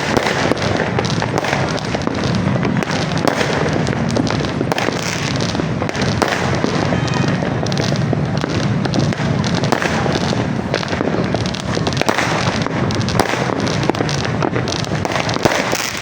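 A New Year's fireworks display going off as a continuous barrage of overlapping bangs and crackles, with no pause.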